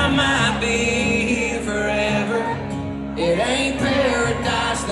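Live country band playing with a singer's voice over it.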